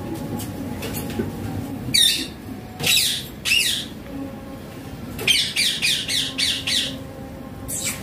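Caged ring-necked parakeet giving harsh squawks: a single call about two seconds in, two more around three seconds, then a quick run of about seven short screeches and one last call near the end.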